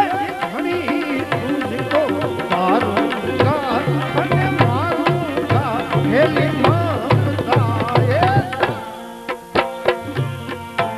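Gujarati devotional bhajan music: tabla keeps a rhythm under a melodic line that glides up and down in pitch. About nine seconds in the gliding melody stops, leaving steady held notes and sharp drum strokes.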